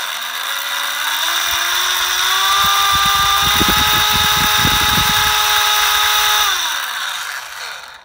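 Aftermarket 370-size brushed electric motor of an RC speedboat spinning its propeller in open air at full throttle. A whine climbs in pitch over the first couple of seconds and holds steady over a loud hiss, with a rattle through the middle, then winds down and stops near the end.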